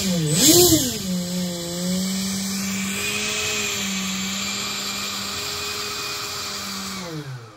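Electric ducted fan on an RC boat running under throttle. It gets two quick blips up and down at the start, then holds a steady whine for several seconds, then spools down near the end.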